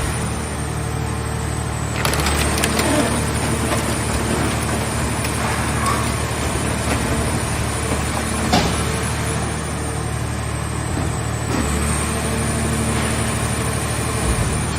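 Hydraulic scrap car-body baler running, its power unit humming steadily, with metal creaking and crackling under the press and one sharp crack about halfway through.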